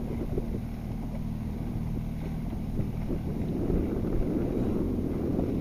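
Outboard motor of an inflatable safety boat running steadily at low speed, with wind noise on the microphone and choppy water against the hull.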